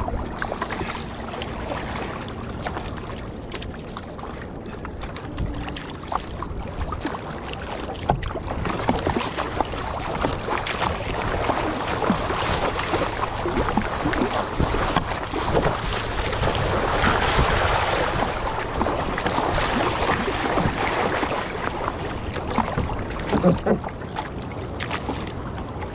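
Surfski paddle blades splashing into the sea stroke after stroke, with water rushing along the hull and wind buffeting the microphone. It gets louder and splashier in the middle as the boat picks up speed.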